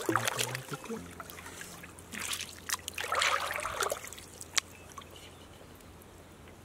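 Shallow water splashing and sloshing as hands move through weedy stream water, in a few bursts, loudest around three seconds in, with a sharp click just after; then quieter trickling.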